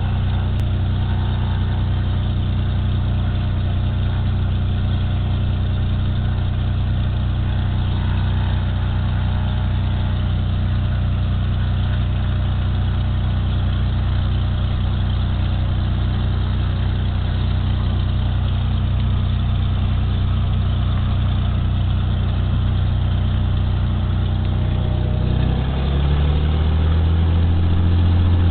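Cessna 206 Super Skylane's six-cylinder piston engine and propeller heard from inside the cabin, running steadily with a regular pulsing throb. Near the end the engine grows louder and rises in pitch as power is brought up for the takeoff roll.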